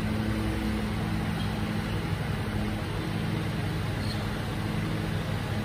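Mercedes-Benz Arocs garbage truck's diesel engine idling steadily, a low, even hum.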